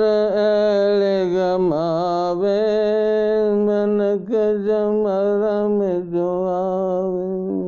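A single male voice singing a devotional bhajan in long held, drawn-out notes with wavering ornaments. The pitch dips briefly a few times.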